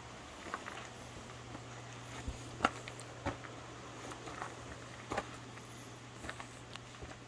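Irregular footsteps crunching on a gravel path over a steady low hum.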